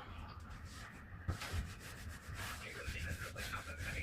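Hand scrubbing of a sprayed door surface: a run of uneven rubbing strokes, with a brief knock about a second in.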